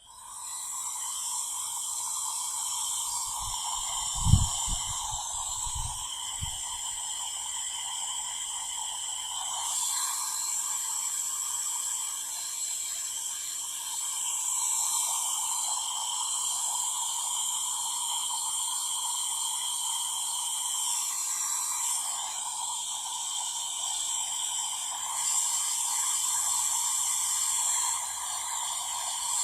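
Electric heat gun blowing hot air steadily, shrinking glue-lined heat-shrink tubing over a cable join, with a few low knocks about four to six seconds in.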